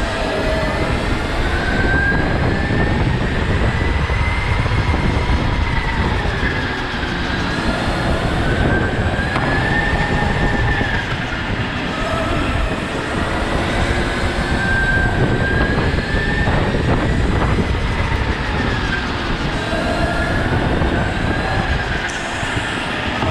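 Go-kart motor heard from on board while lapping: a whine that rises and falls in pitch again and again as the kart speeds up and slows for the corners, over a steady low rumble.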